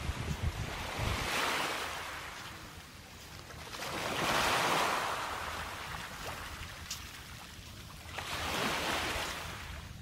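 Rushing outdoor noise of wind and surf, swelling and fading three times, about every three to four seconds.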